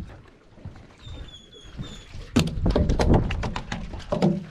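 A freshly caught corvina flopping on wooden pier boards: a rapid, irregular run of thuds and slaps starting a little over two seconds in.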